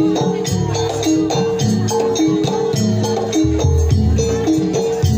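Gamelan music accompanying a jaranan (ebeg) dance: tuned metal percussion plays a quick repeating melody over drums, with many sharp struck beats.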